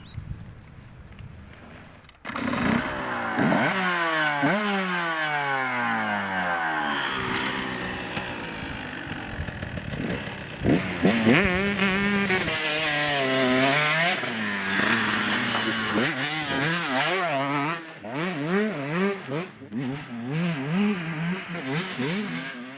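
Dirt bike engine coming in suddenly about two seconds in, its pitch falling over several seconds, then revved up and down over and over before cutting off at the end. Faint birdsong is heard before the engine.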